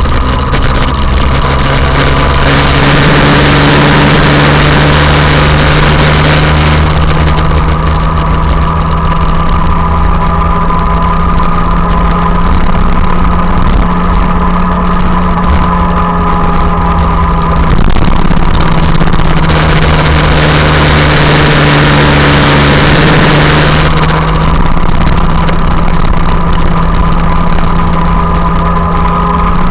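Motorcycle engine running at a steady cruising speed, its pitch nearly constant, under wind noise on the microphone that swells and eases several times.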